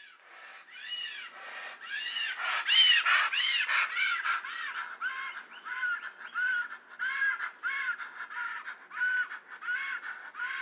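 Pteranodon sound effect: a steady run of harsh, crow-like squawking caws, about two a second. The calls are loudest a few seconds in, then carry on slightly lower in pitch.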